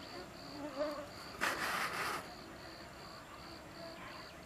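Crickets chirping in a steady rhythm, a high chirp about two and a half times a second, with a mosquito's faint whine passing early on and a brief noisy burst about a second and a half in.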